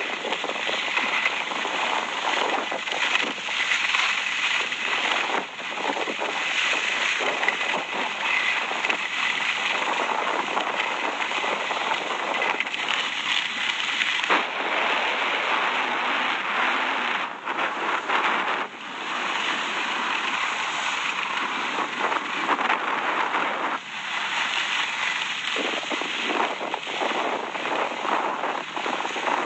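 Skis scraping across firm, packed snow through a series of turns: a steady, rough, crackly hiss with a few brief dips.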